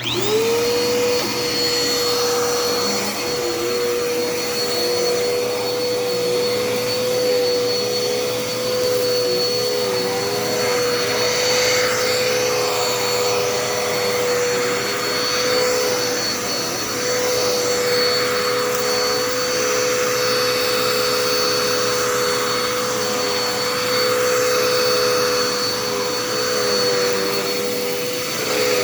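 Dirt Devil Endura Reach upright vacuum cleaner switched on: its motor spins up within about a second to a steady high whine and keeps running while vacuuming, with a second, lower tone that wobbles in pitch.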